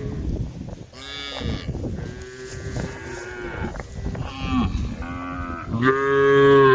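Several cattle mooing, a run of separate calls that overlap at times, with the loudest and longest moo near the end.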